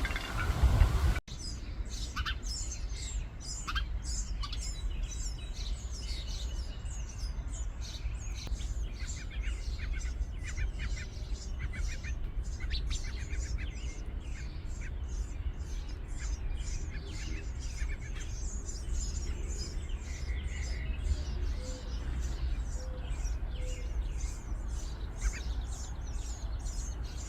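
House sparrows chirping: a long run of quick, high chirps over a steady low rumble. It starts right after a louder noisy sound cuts off about a second in.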